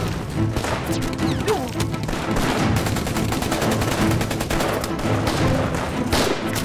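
A heavy exchange of gunfire: rapid, overlapping rifle shots in a continuous fusillade that breaks out suddenly at the start, over a dramatic music score.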